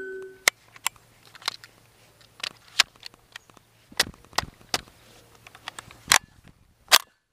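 Irregular sharp clicks and knocks from handling a KRISS Vector carbine, about ten over several seconds, with the loudest near the end; no shots are fired.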